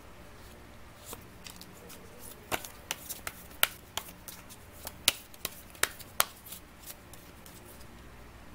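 Tarot cards being handled on a table: a run of sharp, irregular clicks and taps, some much louder than others, starting about a second in and dying away about seven seconds in.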